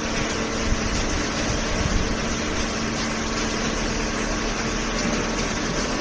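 Steady din of a cardboard shredder and a horizontal hydraulic baler running together, a constant hum under a broad rush of mechanical noise.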